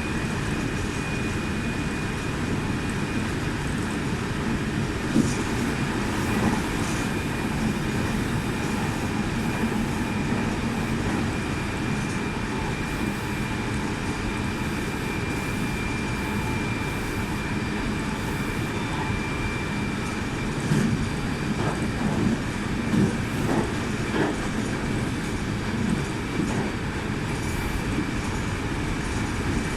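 Meitetsu 2000 series μSKY electric train running, heard from inside the front of the train. A steady rumble of wheels and running gear carries a thin steady high whine, with scattered sharp clicks of wheels over rail joints, several bunched together past the middle.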